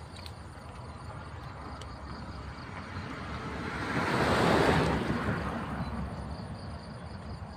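A broad rushing whoosh over a steady low outdoor rumble. It builds from about three seconds in, peaks near the middle, then fades away by about six seconds, like something passing by.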